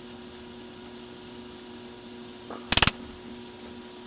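A single sharp knock or clatter, lasting about a quarter of a second, a little under three seconds in, just after a faint tap. Under it, a steady low hum with faint hiss.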